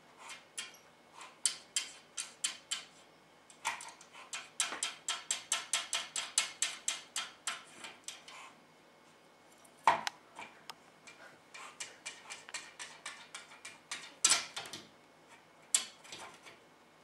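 Small keys on a ring clinking against a metal cam lock and the glass door of a tank as an African pygmy dormouse climbs on them: runs of light metallic clicks at about five a second, with a sharper clink about ten seconds in and a loud pair near fourteen seconds.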